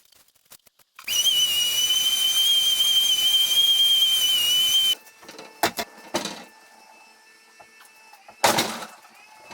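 A steady high-pitched whine over a hiss, as from a small fast-running machine. It starts abruptly about a second in and cuts off just before the middle, and a few sharp knocks and clicks follow.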